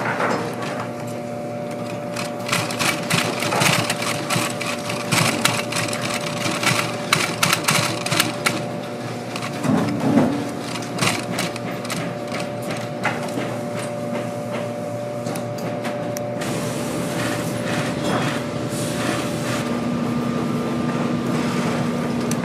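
Industrial post-bed sewing machine stitching leather for a boot upper. Its motor hums steadily under rapid needle strokes, which come in runs that stop and start.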